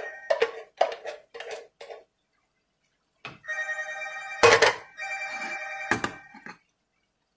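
A mobile phone ringtone plays a pulsing melodic tone, stops about two seconds in, then after a pause rings again in a longer stretch. Two sharp knocks sound about four and a half and six seconds in.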